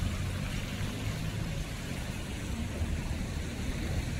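Steady city street traffic noise: a low, even hum of road vehicles with no single distinct event.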